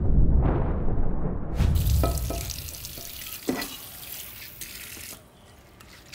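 A deep whooshing rumble fades out, then about a second and a half in a steady rushing hiss of kitchen tap water starts, with a metal clink of a pot or utensil about halfway; the water stops about five seconds in.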